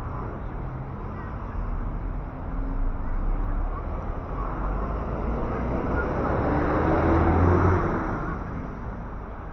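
A motor vehicle passing: engine hum and road noise build to a peak about seven seconds in, then fade away.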